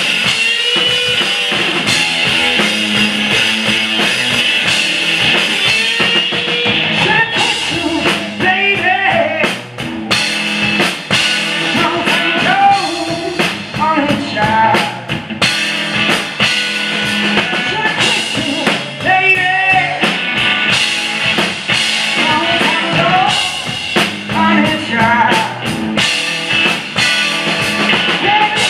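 Live rock music from a guitar-and-drums duo: a distorted semi-hollow electric guitar over a pounding drum kit, with a man singing through part of it.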